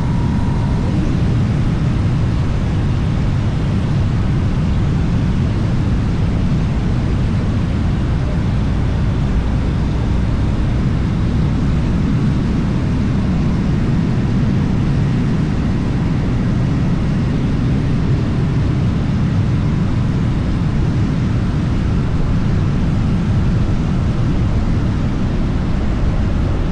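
Steady low rumble of wind mixed with the hum of a boxer engine running at an even speed.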